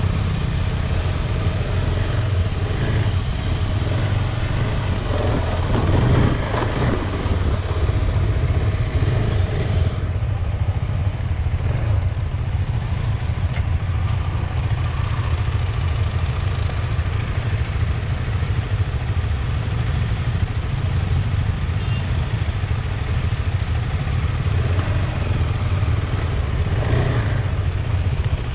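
KTM Adventure motorcycle's single-cylinder engine running while being ridden, a steady low rumble with no big changes in revs.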